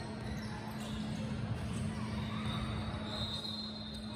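Basketball game in a gym: a ball bouncing on the court amid the general rumble of play, over a steady low hum. A faint high squeak-like tone comes in about two seconds in and is strongest around three seconds.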